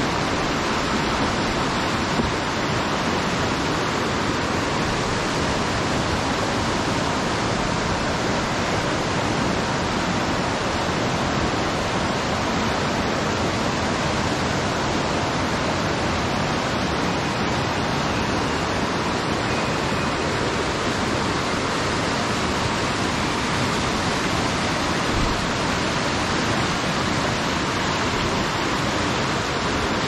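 Fast-flowing river water rushing steadily, an even, unbroken wash of noise.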